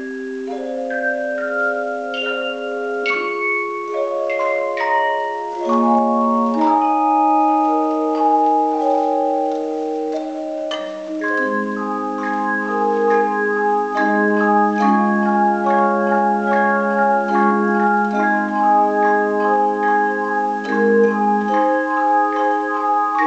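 Tone chime ensemble playing a hymn tune: struck handheld chimes ring on in long, overlapping notes, a melody over held chords. The sound grows fuller about halfway through, with more chimes sounding together.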